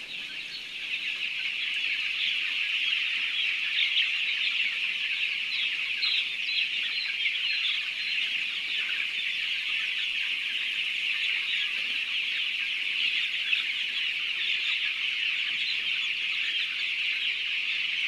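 A large flock of six-day-old broiler chicks peeping all together in a dense, steady chorus of high, overlapping cheeps.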